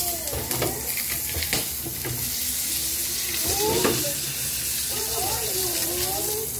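Pork belly frying in hot oil in a wok: a steady sizzle with a few sharp crackles.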